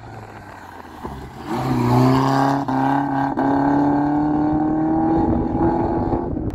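Rally car's engine at full throttle, passing close on a gravel stage. The note cuts out briefly twice, a little under a second apart, then climbs slowly in pitch as the car pulls away.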